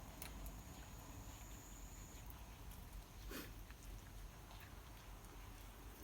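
A cat gives one short, faint mew a little over three seconds in, over low background noise with a few faint clicks.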